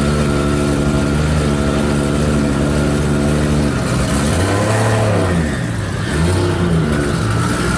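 Nissan Silvia S15 drift car's engine running at a steady idle while stationary, then revved several times from about four seconds in, the pitch rising and falling with each blip.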